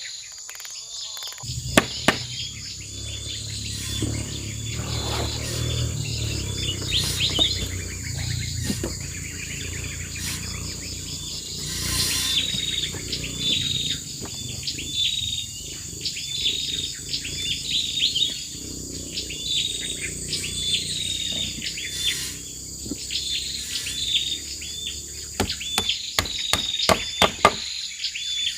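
Forest ambience: a bird chirping over and over in short high notes over a steady high insect drone. Scattered sharp knocks sound now and then, several in quick succession near the end, and a low rumble underneath stops a few seconds before the end.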